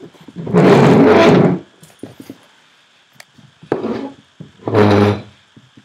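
Velcro on a whelping-box blanket tearing loose as a puppy tugs at it: one loud tear of about a second near the start, then two shorter tears near the end.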